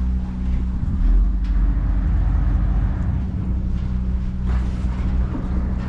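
Ferry's engines running as the vessel comes in to dock, a steady low drone.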